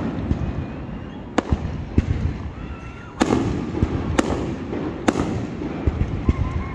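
Aerial fireworks shells bursting: five sharp bangs about a second apart, with smaller pops near the end, over a continuous rumble and crackle of the display.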